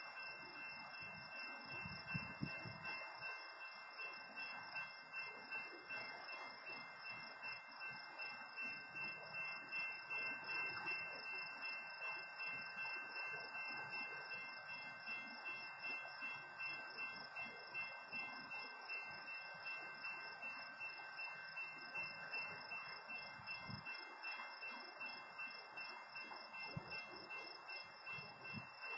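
Crickets chirping steadily in high, pulsing trills over a low, even background hiss.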